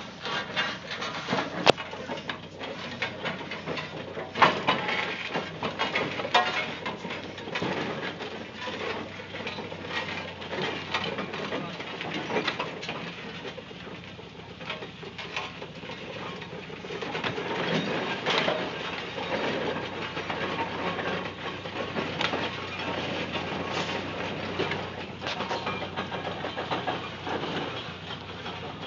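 Steam roller on the move, its steam engine running with many irregular knocks and clanks from the engine and the iron wheels and rollers on the road.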